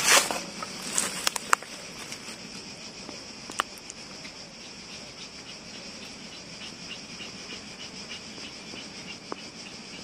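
Steady chorus of chirping insects, with short repeated chirps standing out in the second half. A few crunching footsteps on dry leaves come in the first second or two.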